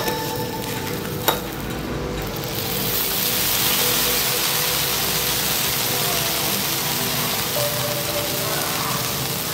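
Okonomiyaki (cabbage pancakes) sizzling on a hot flat-top griddle, the sizzle growing louder about three seconds in. A single sharp click of a metal spatula comes about a second in.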